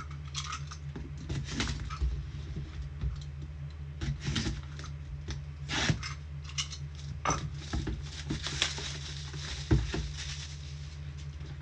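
A trading card box and its pack being opened and the cards handled: irregular rustles, scrapes and small taps, over a steady low hum.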